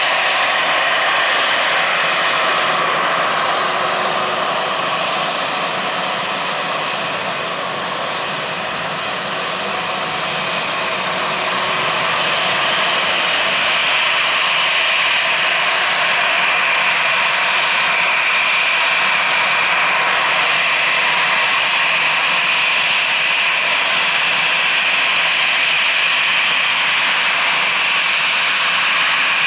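Airliner engines running loud and steady, a continuous rushing drone that dips slightly for a few seconds before building back up.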